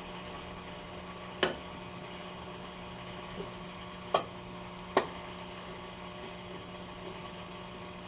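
Hallicrafters S-120 tube radio's speaker giving a steady hum with a faint hiss, broken by three sharp crackles. The hum is the sign of failing filter capacitors that need replacing.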